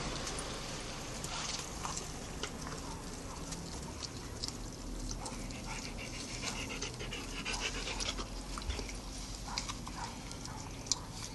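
Two-week-old puppies eating from a shallow dish as they begin weaning onto solid food: quick wet lapping and smacking clicks, with a few short high whimpers about halfway through.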